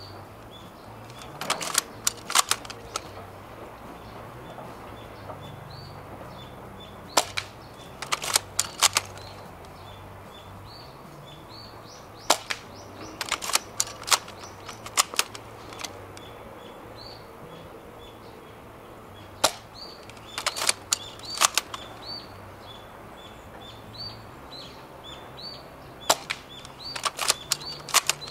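Spring-powered airsoft bolt-action sniper rifle (Snow Wolf SV-98) being fired at a target: sharp cracks and clacks of the action come in clusters every few seconds. Birds chirp faintly in the background.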